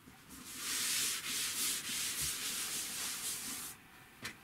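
Cloth scrubbing chalk writing off a chalkboard: a hissing rub for about three seconds that swells and dips with each wiping stroke, then stops, followed by a short tap near the end.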